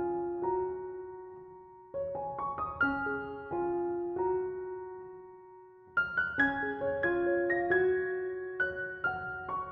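Background piano music: short phrases of struck notes that ring and fade, with new phrases starting about two seconds and six seconds in.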